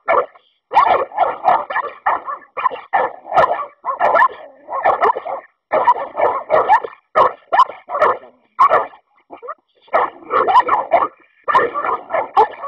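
American Staffordshire terriers barking hard and fast, several barks a second in long runs broken by a few short pauses.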